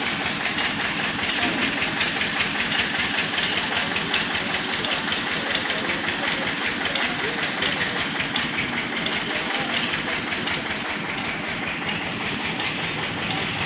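An engine idling steadily close by, with a fast, even pulsing beat that keeps on unchanged.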